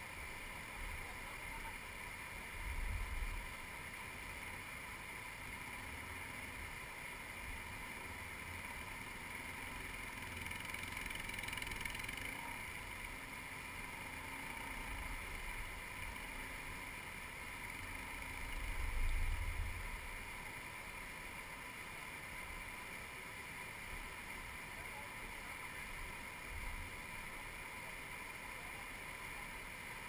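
Steady rush of river rapids flowing under and around the bridge. A few low rumbles of wind buffeting the microphone come and go, loudest about three seconds in and again about two-thirds of the way through.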